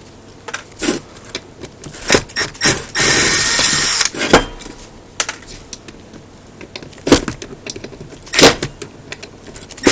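Metal parts of an antenna rotator clanking and knocking as it is taken apart by hand. A power drill runs briefly for about a second, a few seconds in.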